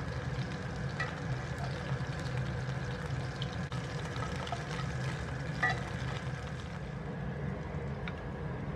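Mutton keema seekh kababs shallow-frying in oil in a pan: a soft, steady sizzle with a few small pops and clicks scattered through it, over a low steady hum.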